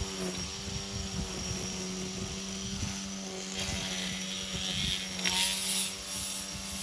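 A small gasoline engine runs at a steady speed, with uneven low knocks beneath it and a brief hiss about five seconds in.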